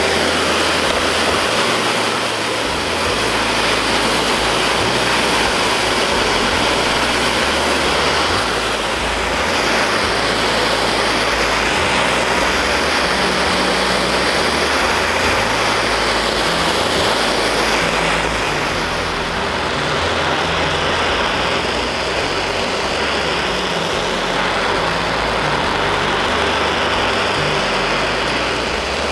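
Power grinder running steadily against steel, a continuous loud grinding hiss whose high edge sweeps up and down as the work moves.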